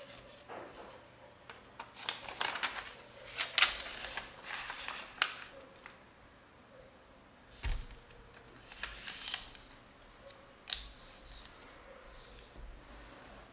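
A square sheet of origami paper being handled, folded and creased by hand: a string of dry rustles and sharp crease strokes. They come in a busy run early on and then in scattered bursts.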